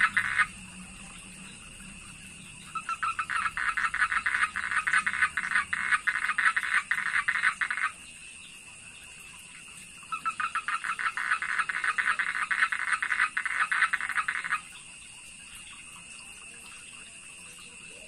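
A male toad calling with its throat sac puffed out: a rapid pulsing trill that lasts about five seconds, then after a short pause a second trill of about four and a half seconds. The tail of an earlier trill fades just as the first begins.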